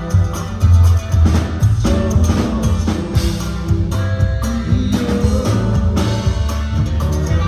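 Live band playing an instrumental passage, with drum kit, bass and guitar.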